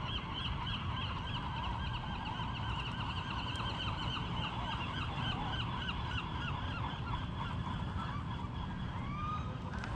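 A chorus of animal calls: many fast, repeated honking calls overlapping, several a second, with a low rumble of wind or water beneath.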